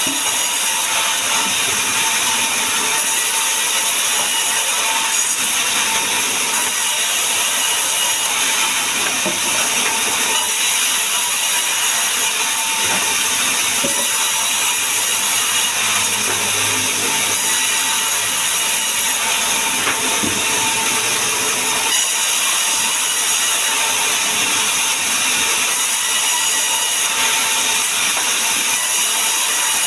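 Power saw running steadily through sengon wood: a loud, even hiss with a steady whine. A lower hum joins for a few seconds in the middle.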